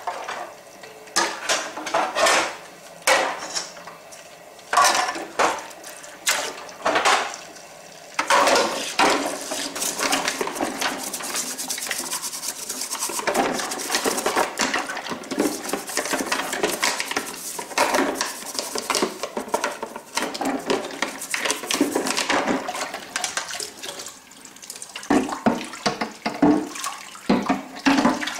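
Tap water running into a ceramic sink while hard plastic toy parts knock and clatter in the basin and are scrubbed with a brush. Separate knocks come first; from about eight seconds in the running water is steady under the clatter.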